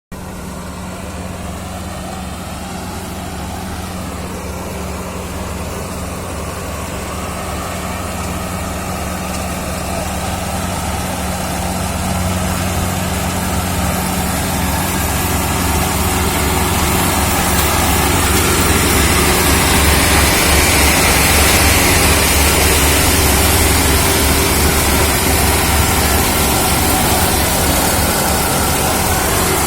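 A heavy engine running steadily with a low hum, growing gradually louder as it goes on.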